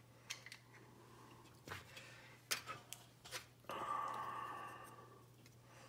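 Plastic model-kit parts being handled on a metal tray: a few light clicks and taps, then, about four seconds in, a brief scraping rustle that fades as the plastic chassis frame is picked up, over a faint steady low hum.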